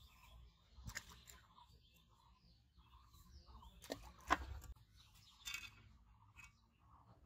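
A small splash in the water about four seconds in, the loudest sound, amid faint handling and rustling sounds.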